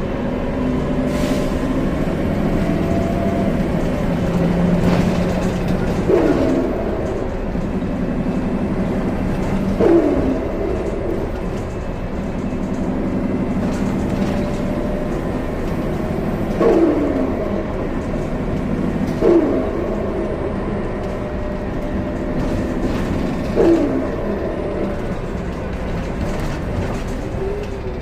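Gillig Low Floor CNG transit bus running, with a steady engine drone. Several short, sharp sounds drop quickly in pitch over it, spaced a few seconds apart.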